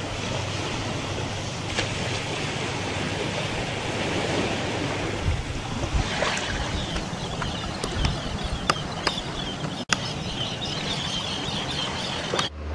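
Steady rush of sea surf with wind on the microphone, with a few short clicks and faint high chirping; it cuts off suddenly near the end.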